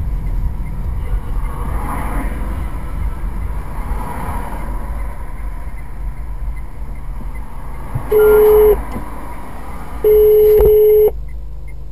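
Low rumble of a car cabin with the car standing still, then two loud, steady telephone line tones heard from a phone: the first short, the second about a second long and cut off suddenly, as an outgoing call is put through.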